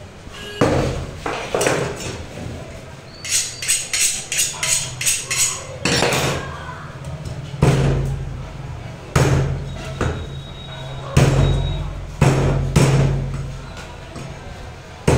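Heavy steel cleaver chopping chicken on a wooden log chopping block. A quick run of about eight light chops comes a few seconds in, then heavier single chops with a deep thud every second or two.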